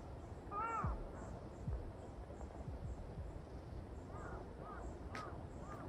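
Crows cawing: one clear caw near the start, then a run of fainter, more distant caws in the last two seconds. A faint, even, high ticking runs underneath.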